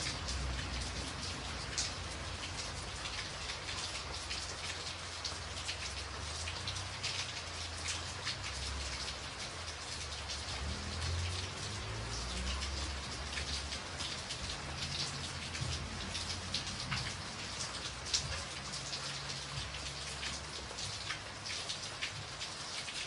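Steady rainfall, with many individual drops ticking through an even hiss and an uneven low rumble underneath.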